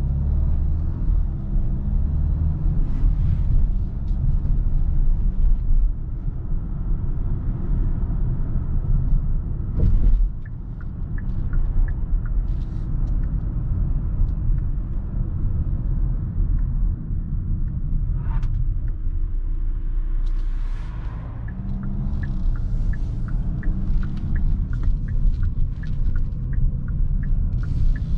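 Kia Sorento with a 2.2-litre CRDi diesel engine being driven: a steady low rumble of engine and road noise. A light, regular ticking joins in during the last third.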